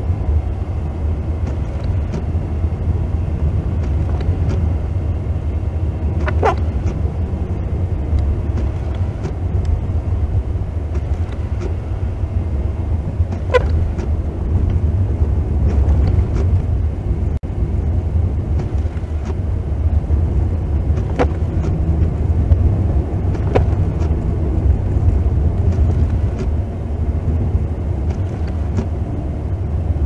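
Car driving slowly along a snow-covered road, heard from inside the cabin: a steady low rumble of engine and tyres, with a few faint short ticks.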